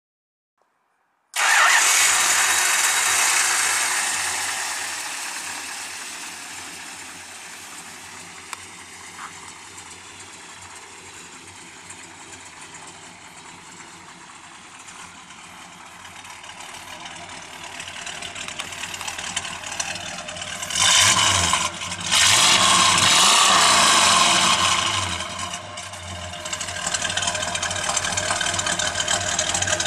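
A 1969 Dodge Coronet R/T's 440 cubic-inch Magnum big-block V8 fires up about a second in, loud at first, then settles to a steady, quieter idle. About two-thirds of the way through it is revved twice, a short blip and then a longer rev of about three seconds, before dropping back to idle.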